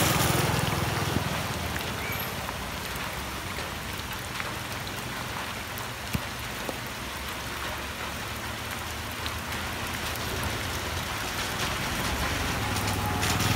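Heavy rain falling steadily on a wet road and river, an even hiss with scattered drop clicks. A motorcycle engine fades away over the first couple of seconds, and another small vehicle engine grows louder near the end.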